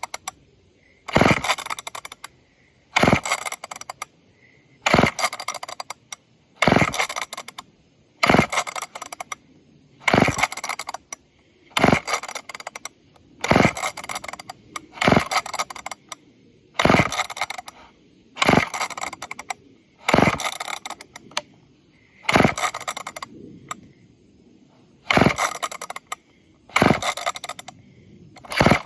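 Old two-stroke chainsaw being pull-started with the choke out: the recoil starter rope yanked over and over, about once every two seconds, some sixteen pulls, each a short rattling whirr of the engine turning over without firing. The engine won't catch.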